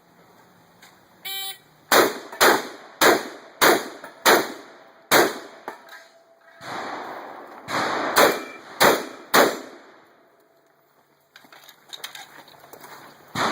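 A shot-timer start beep, then a string of shotgun shots. Six quick shots come about half a second apart, then after a pause of a couple of seconds about four more in quick succession.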